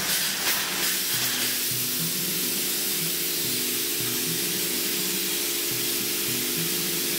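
Spray polyurethane foam gun hissing as insulation foam is sprayed over a concrete floor slab, pulsing for about the first second and then steady, over background music.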